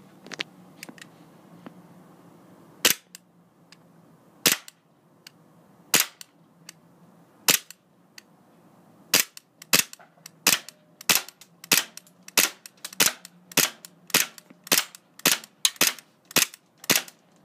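WE G17 gas blowback airsoft pistol firing. It fires four single shots about a second and a half apart, then a quicker string of about fourteen shots, a little under two a second.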